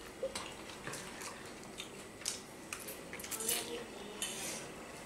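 Forks clinking and scraping against plates in irregular light clicks as several people eat, with a longer scrape about three and a half seconds in.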